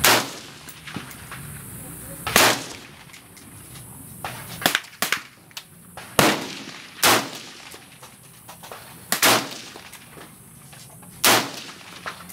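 Semi-automatic AR-15-type rifle with a 20-inch M16 A2 upper, firing single aimed shots in 5.56 mm. Six loud, sharp shots come unevenly, one to four seconds apart, with two fainter shots about halfway through.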